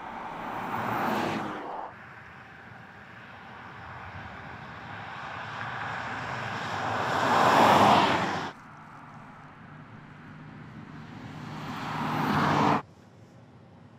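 Porsche Panamera 4 E-hybrid driving by three times in a row. Each pass is a rushing sound that swells as the car nears and then cuts off abruptly; the middle pass is the loudest.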